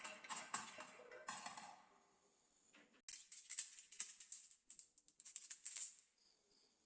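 Marbles clicking and clattering down a wooden HABA marble run: a dense, ringing clatter for the first two seconds, a short lull, then a run of sharp separate clicks.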